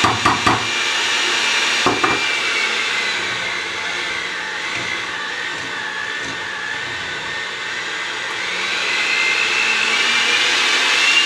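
Electric hand mixer running with its beaters in a saucepan, beating eggs into stiff choux paste; the motor's whine sags in pitch in the middle and rises again near the end as the load on the beaters changes. A few short knocks sound in the first two seconds.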